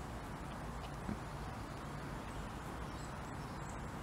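Quiet woodland outdoor ambience: a steady low background rumble with a few faint, short, high bird chirps, and one soft knock about a second in.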